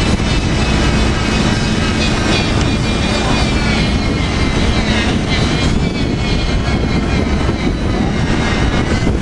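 Loud, steady industrial machinery noise with a low hum that fades about halfway through.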